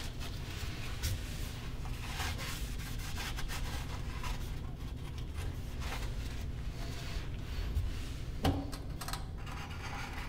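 Faint rubbing and handling noises of a gloved hand wiping the underside of a granite countertop, with one sharp knock about eight and a half seconds in.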